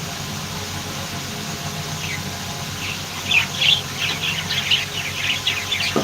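Budgerigars chirping, with many short high calls starting about two seconds in and coming thick and fast toward the end, over a steady low hum.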